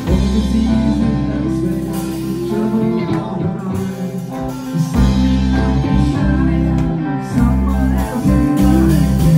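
Live rock band playing: electric guitars over bass and a drum kit, at full volume through the club PA.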